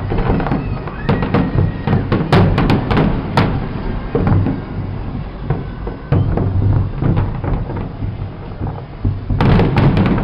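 Fireworks display: a rapid string of sharp bangs and crackles, densest in the first few seconds and again near the end, over a constant low rumble.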